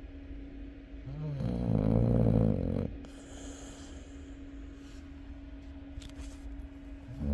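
Chow chow dog snoring: one long snore about a second in, lasting nearly two seconds.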